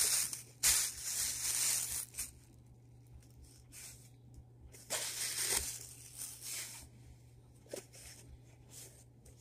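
Tissue paper rustling and crinkling inside a paper gift bag as hands rummage through it. There is a long burst over the first two seconds, a second burst about five seconds in, and softer scattered crackles between.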